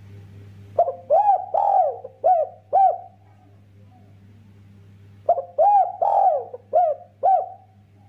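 Spotted dove cooing: two phrases about four and a half seconds apart, each a run of about five rising-and-falling coos lasting around two seconds.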